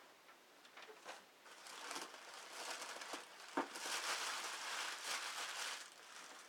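Packing material crumpling and crinkling as it is handled, building up and loudest in the second half, with a few light knocks, the sharpest about three and a half seconds in.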